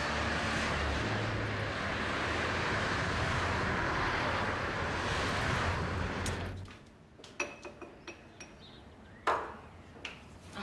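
Street traffic: a steady rush of passing cars, which stops abruptly about six and a half seconds in. Then scattered light clinks and knocks of dishes and kitchenware, with one louder knock near the end.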